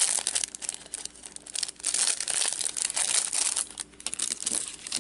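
Clear plastic bag crinkling and crackling in irregular bursts as hands handle and unwrap a small bagged soap sample.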